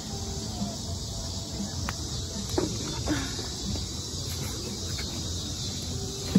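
Steady high-pitched chorus of crickets or other insects over a low background rumble, with a few faint brief knocks and sounds about halfway through.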